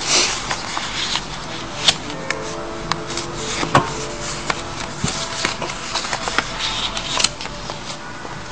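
Sheet of white origami paper being folded and creased by hand: crisp rustles and sharp crinkles at irregular intervals, over soft background music.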